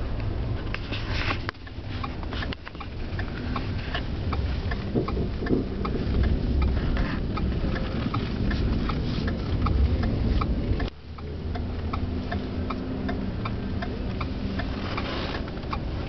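Car driving, heard from inside the cabin: a steady low rumble of engine and tyres, with a light regular ticking about two or three times a second.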